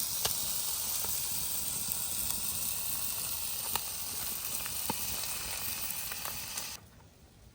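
Tilapia fillets and onion frying in butter in a pan, a steady sizzle with a few sharp pops. It cuts off suddenly near the end.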